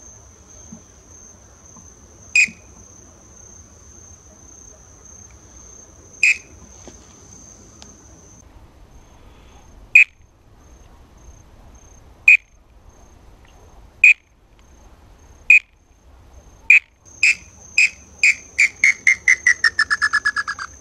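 Wooden tinamou call (pio) blown as single clear whistles a few seconds apart, then near the end a run of notes that speeds up and falls in pitch, imitating an inambu's song to call the birds in. A steady high insect drone from crickets or cicadas runs underneath.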